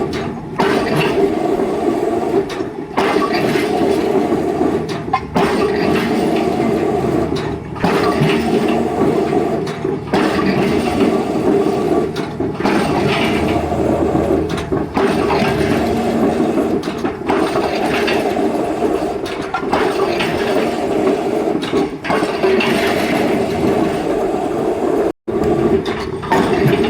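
Excavator drop hammer driving a square concrete pile: a loud, rough mechanical clatter and rumble that breaks off briefly about every two and a half seconds as the hammer cycles. The sound cuts out for a split second near the end.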